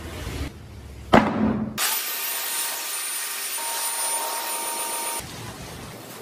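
A heavy knock about a second in, then a woodworking power tool cutting wood for about three seconds: a steady hiss of cut shavings with a thin whine, stopping abruptly.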